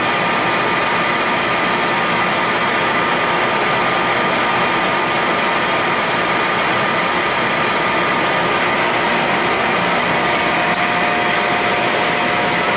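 Shop vacuum running steadily as dust extraction beside a CNC-converted Central Machinery mini mill, whose spindle and end mill are cutting a pocket in a graphite mold block. The sound is a loud, even rush with faint steady whining tones over it.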